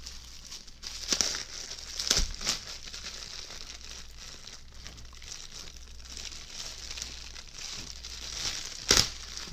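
Plastic packaging crinkling as it is pulled and unwrapped from a costume boot, with sharp crackles about a second in, around two seconds in, and a loudest one near the end.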